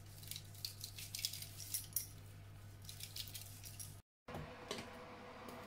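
Faint light clicks and clinks of foil trays of wooden-skewered pork being handled, over a steady low hum. The sound drops out briefly about four seconds in, after which a faint steady hum continues.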